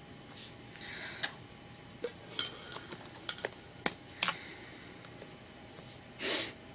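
A few light, sharp clicks and taps at uneven intervals, most of them grouped about two to four seconds in, then a short soft rush of noise near the end.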